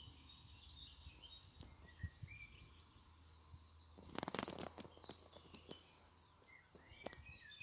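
Faint outdoor birdsong: short chirps and whistled notes from small birds, scattered throughout. About four seconds in comes a brief cluster of rustling clicks, the loudest moment.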